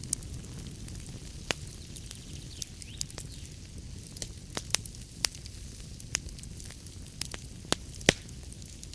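Wood fire burning in a fireplace: a steady low rumble and hiss with irregular sharp pops and crackles, the loudest pop about eight seconds in.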